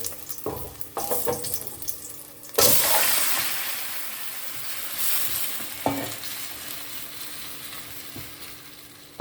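Garlic dropped into hot olive oil in a pot, sizzling: a few light clicks, then a sudden loud sizzle about two and a half seconds in that slowly dies away, swelling again briefly, with a single knock about six seconds in.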